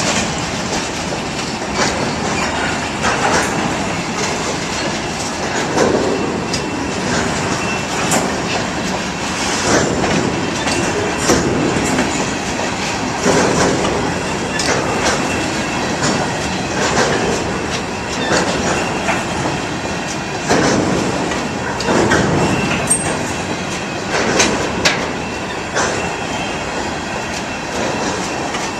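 Iowa Interstate Railroad freight train rolling past, its car wheels clacking over rail joints every couple of seconds above a steady rumble.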